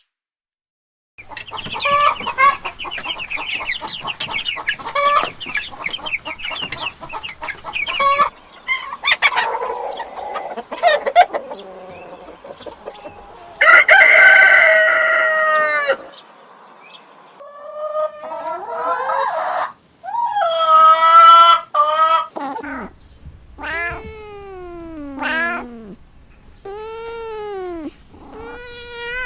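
Chickens clucking, and a rooster crowing once, loud and long, about halfway through. In the last part a cat meows over and over, each meow rising and falling in pitch.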